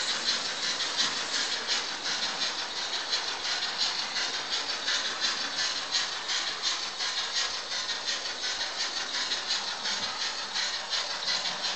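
Model steam locomotive running with its coaches: a steady, rhythmic hissing chuff, about four to five beats a second.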